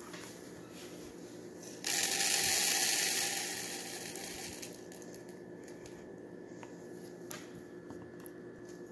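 Small pink beads poured from a jar into a clear plastic tub, a dense rattling rush that starts suddenly about two seconds in, lasts a second or so and tails off. A few scattered clicks follow later.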